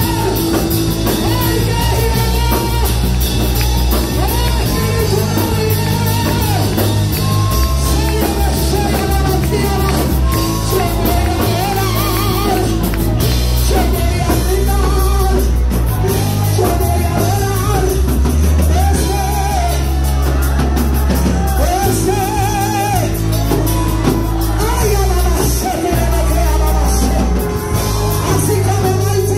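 Live church worship music: a woman singing into a handheld microphone over the sound system, backed by keyboard with a heavy bass line.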